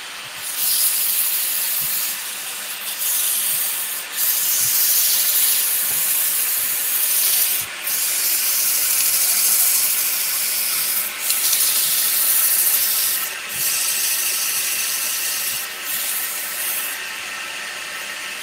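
Abrasive sanding on a wooden vase spinning on a wood lathe: a hissing rasp in stretches of a few seconds, broken by about six brief dips as the abrasive is eased off and put back, over the faint steady hum of the running lathe.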